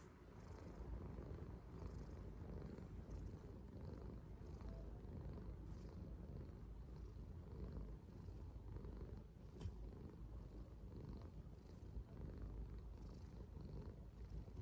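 Korean shorthair cat purring steadily, a faint low rumble that swells and eases with its breathing: the sound of a relaxed, contented cat.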